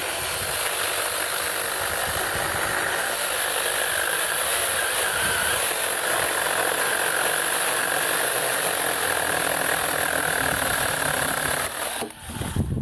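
Alloyman 6-inch 20-volt cordless mini chainsaw running free at full speed with no cutting load: a steady, high-pitched whine from the electric motor and chain that cuts off near the end.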